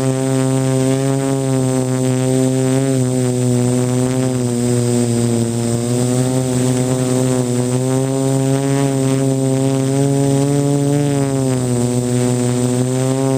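Multirotor quadcopter's electric motors and propellers buzzing close to the microphone: a loud, steady, many-toned drone whose pitch wavers slowly up and down.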